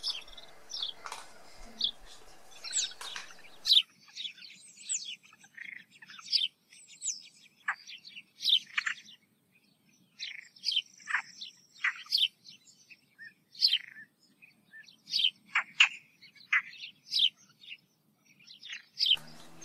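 Small bird chirping and tweeting: a rapid, irregular run of short high chirps and quick downward-sweeping whistles.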